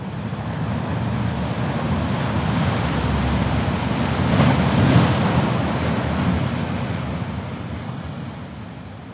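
Sea surf: a wave surging in, swelling to a peak about halfway through, then washing out and fading away.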